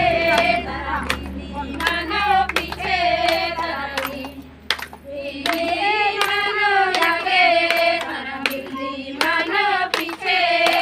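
A group of women singing a song together, clapping their hands in steady time with it.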